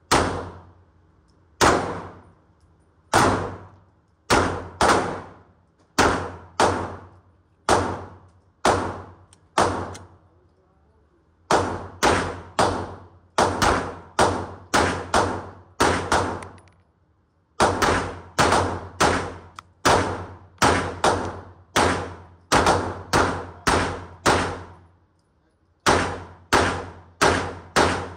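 Pistol shots fired in quick strings, about two a second, with brief pauses between strings. Each shot is a sharp crack followed by an echoing ring from the indoor range.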